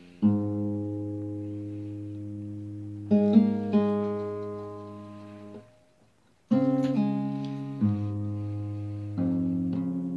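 Acoustic guitar chords strummed and left to ring, a new chord every one to three seconds, with a brief stop about six seconds in.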